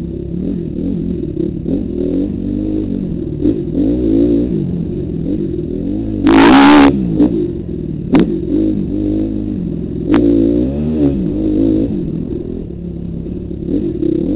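Dirt bike engine revving up and down as the bike picks its way along a rough trail. A brief loud burst of noise comes about six seconds in, and there are a few sharp knocks later.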